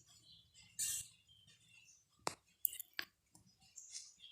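Faint, patchy sizzle of potato snacks deep-frying in oil, with three sharp clicks of a utensil against the pan between about two and three seconds in, as the snacks are turned.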